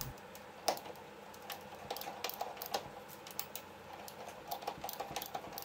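Faint, irregular small clicks and ticks as an M5 hand tap is turned into a hole in a 12L14 steel part held in the lathe.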